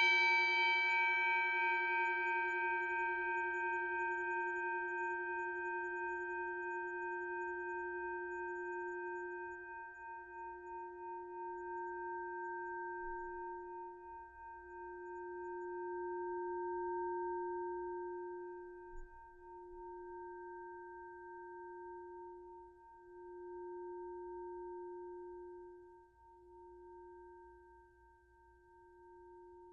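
A boxing bell ringing on after a single strike, a long fading ring of several steady tones whose lowest tone swells and fades every two to three seconds.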